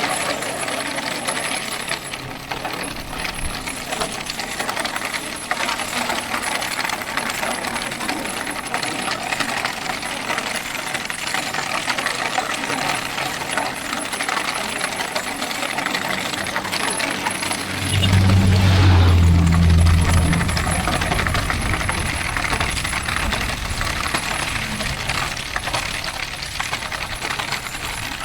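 Steel ball-bearing wheels of a wooden firewood cart rolling fast downhill: a steady metallic rattling grind. About 18 seconds in, a loud low rumble swells for a couple of seconds and fades.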